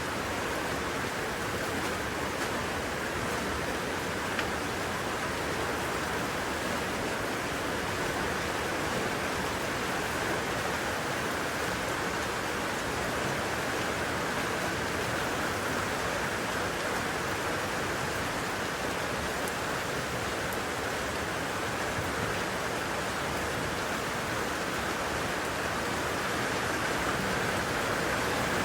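Heavy rain falling steadily, an even hiss of downpour with no breaks.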